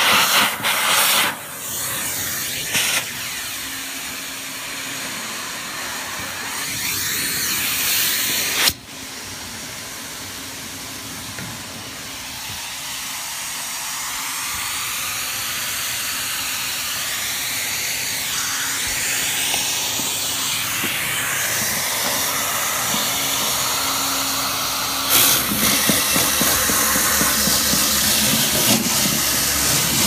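Duct-cleaning vacuum hose pulling air through a floor heat register: a steady, strong hissing rush of air. It drops abruptly about nine seconds in and grows louder again near the end.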